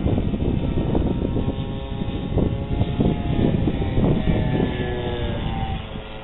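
Funtana RC model airplane's engine running in flight, its pitch shifting and falling a little about four to five seconds in, over gusty wind rumble on the microphone.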